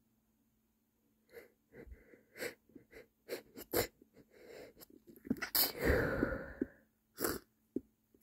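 A man's stifled sneezes. A run of short, sharp catches of breath leads into one longer, louder muffled sneeze about six seconds in, and a short stifled sneeze follows near the end.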